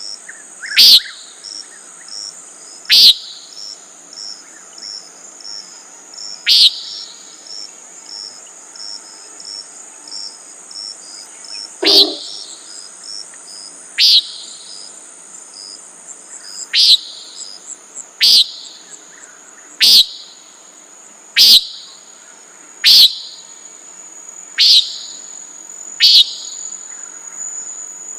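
Common nighthawk giving short peent calls, about a dozen, spaced one to five seconds apart, over a steady high-pitched trill of crickets.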